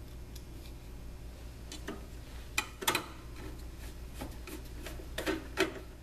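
Scattered light clicks and knocks from hands working at a Lavazza Espresso Point espresso machine's open front door and pod holder, over a steady low hum.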